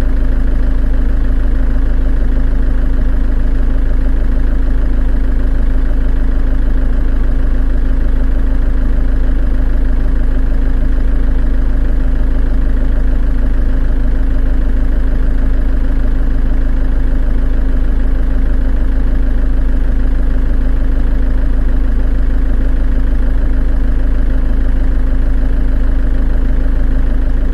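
Volkswagen 2.8-litre diesel engine running at a steady, unchanging speed with a constant low rumble.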